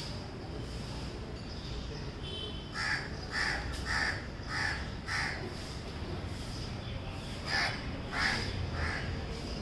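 Small pet parrot chirping: a run of five short calls about half a second apart, then three more near the end.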